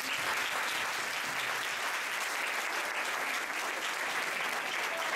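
An audience of schoolchildren applauding, dense and steady clapping from a roomful of people.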